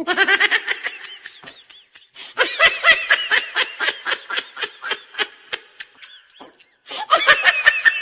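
High-pitched human laughter in quick repeated bursts, pausing briefly about two seconds in and again near the end.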